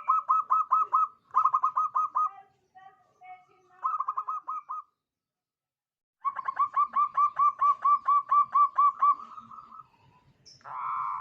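Zebra dove (perkutut) cooing in fast trains of short, evenly spaced notes, about seven a second, in several phrases with a pause in the middle and the longest phrase in the second half. A rougher, noisier burst comes near the end.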